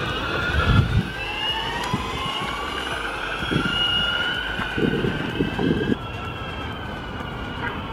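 Boosted electric longboard's belt-driven motors whining, the pitch rising slowly as the board picks up speed and then holding steady, with a few short low rumbles underneath.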